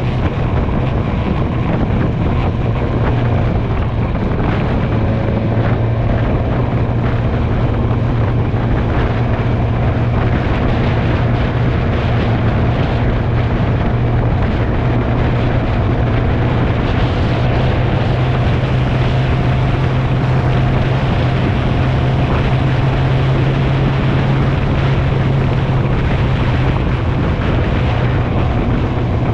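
Motorcycle engine running steadily at cruising speed, a constant low drone with the rush of wind and road noise over it.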